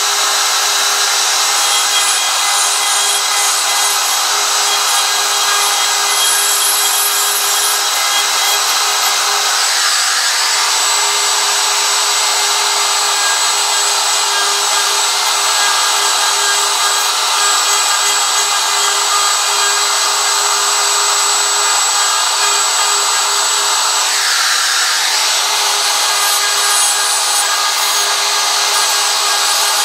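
DeWalt DW618 router running steadily, its bit cutting into wood to clear the background of a carved sign: a constant motor whine over the hiss of the cut.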